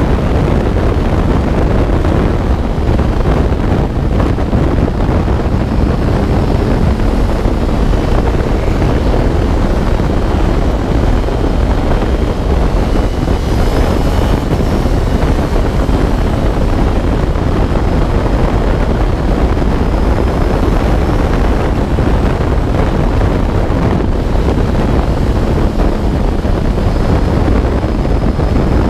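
Loud, steady wind noise buffeting the microphone over the engine of an open-cockpit MNR Vortx track car lapping at speed. The car is powered by a Honda CBR1000RR Fireblade inline-four motorcycle engine.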